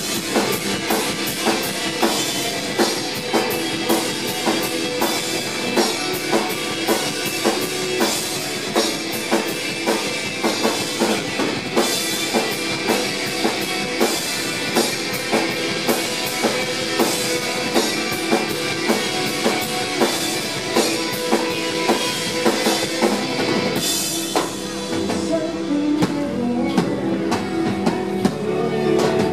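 Live rock band playing: electric guitars, bass guitar and a drum kit keeping a steady beat.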